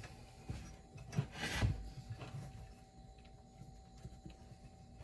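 Small golf cart tire being worked by hand on its rim: rubber rubbing and scraping against the wheel, with light knocks and a louder scrape between one and two seconds in, as the inner tube is forced inside.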